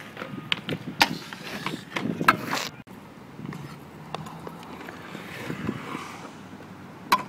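Stunt scooter wheels rolling on concrete, with several sharp clacks of the scooter striking the ground in the first three seconds. After an abrupt cut, there is the steadier rumble of the wheels carving around a concrete bowl.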